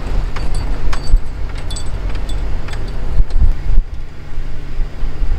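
Car road noise heard inside the cabin while driving: a steady low rumble with frequent light rattles and clicks.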